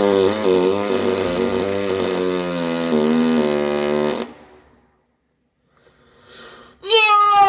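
A long, loud fart noise: a buzzing drone whose pitch wavers, lasting about four seconds and then stopping abruptly. Near the end a man lets out a loud yell.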